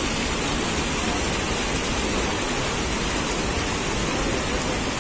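Steady rushing of muddy floodwater pouring over a road that heavy rain has turned into a stream.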